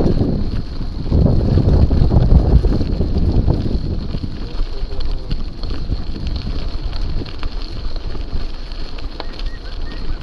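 Wind buffeting the microphone of a bike-mounted action camera, a steady low rumble with the rustle of tyres as a mountain bike rolls slowly along a tarmac path.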